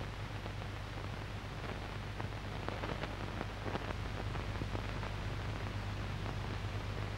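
Steady hiss and crackle with a low steady hum underneath, the noise of an old 1950s TV recording running with no programme sound; the crackles come thicker around the middle.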